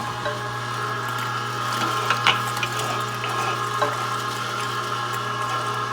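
Weston #32 Butcher Series 1.5-horsepower electric meat grinder running steadily while grinding deer meat: a constant motor hum with a few sharp clicks about two seconds in and again near four seconds.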